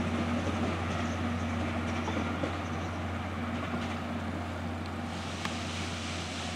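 Steam-hauled passenger coaches of the SL Paleo Express rolling past on the rails with a steady low rumble that eases slightly as the last coach goes by, with a single sharp click about five and a half seconds in.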